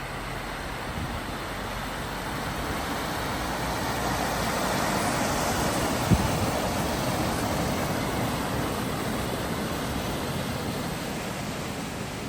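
A vehicle wading through floodwater at a ford: a wash of water and tyre noise that builds to its loudest in the middle and fades again, with one sharp knock about six seconds in.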